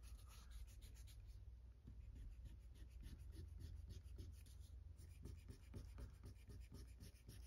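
Faint, quick strokes of a Pentel Clic stick eraser rubbing gently over a comic book's paper cover, dry cleaning surface dirt off it.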